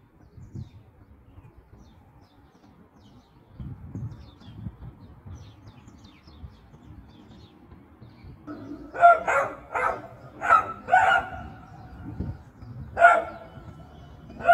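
Dog barking: a quick run of about five barks some nine seconds in, then a single bark about two seconds later. Before the barking there is only a low background rumble with faint bird chirps.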